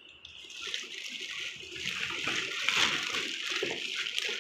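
Water running, a steady hiss that grows louder over the first couple of seconds.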